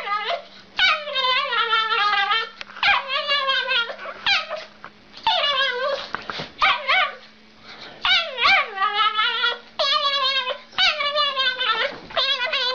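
Small dog howling in a series of drawn-out, wavering cries that bend up and down in pitch, about one a second, with a short pause partway through.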